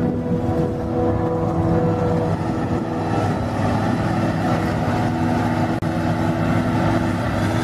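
Claas Jaguar 830 self-propelled forage harvester working under load: a steady engine and chopper hum with a dense rush of chopped grass blown through the spout into the trailer. The tones shift slightly about two and a half seconds in.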